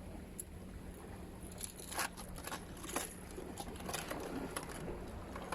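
A quick run of light clicks and rattles of fishing tackle being handled while a lure is swapped, over a steady low hum.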